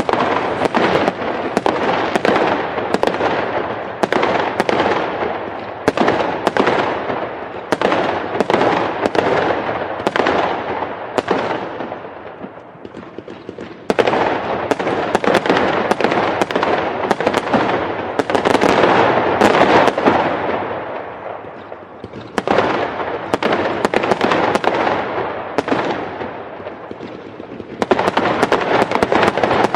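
Fireworks going off in rapid volleys of sharp bangs, each trailing off into crackling. The barrage thins out briefly a few times before new salvos start up again.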